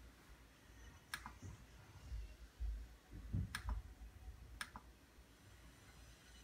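Three sharp computer mouse clicks about a second or two apart, each followed closely by a softer second click, over a few faint low thumps.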